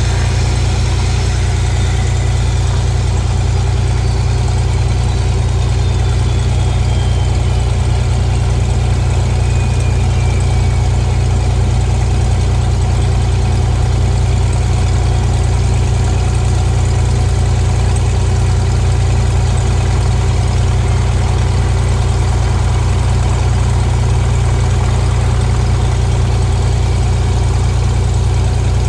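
Cessna RG's piston engine and propeller running steadily, a constant low drone. A faint high whine falls slowly in pitch over the first ten seconds.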